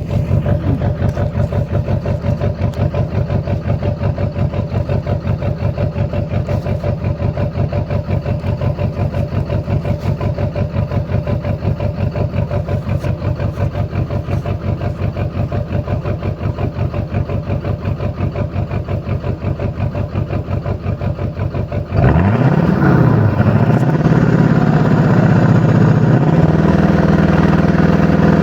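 LLY Duramax 6.6-litre V8 turbodiesel idling with a regular pulsing beat, which the owner takes for a misfire. About twenty-two seconds in it gets suddenly louder, revs up and back down, then holds at a higher steady speed.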